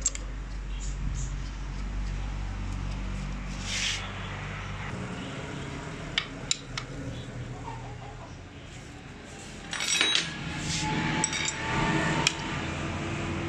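Small metal clinks and taps of a hand tool and parts against the aluminium body of a Toyota 2C diesel injection pump as it is worked on. There are a few sharp clicks about six seconds in and a denser cluster of clinks around ten to twelve seconds in, over a low steady hum.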